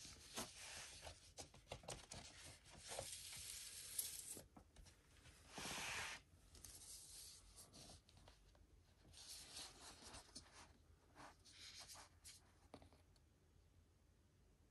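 Paper and cardboard rustling and scraping as a vinyl record's sleeve and printed insert are handled, in irregular bursts with one longer, louder swish about six seconds in.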